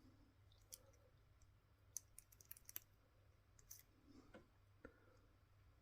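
Near silence with faint, scattered small clicks: small metal parts of a Dunhill Rollagas lighter being handled during reassembly.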